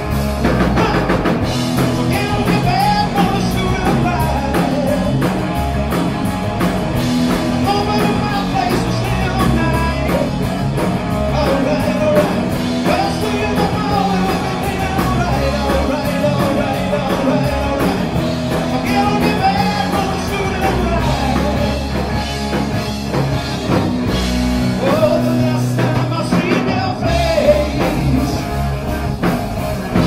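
Rock band playing live, with distorted electric guitars, electric bass and a drum kit, and a male voice singing over them.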